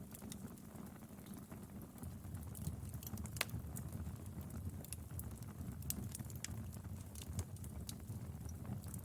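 Wood fire crackling: scattered sharp pops and snaps at irregular times over a low steady rumble.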